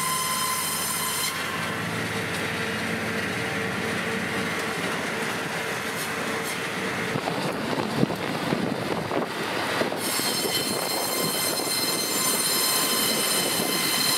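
Circular sawmill running: the large saw blade gives a high, many-toned whine, which gives way about a second in to a rougher sawing noise with some sharp knocks around the middle. The whine comes back about ten seconds in.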